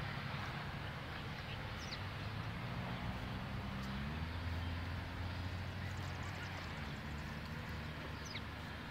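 Low, steady drone of a distant engine, its pitch stepping up about four seconds in, over outdoor background hiss. Two brief faint high chirps, about two seconds in and near the end.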